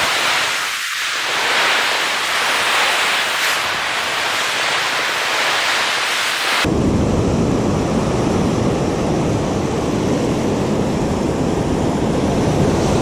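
Surf washing up the beach, with wind on the microphone: a steady hiss that changes abruptly about six and a half seconds in to a deeper rumble.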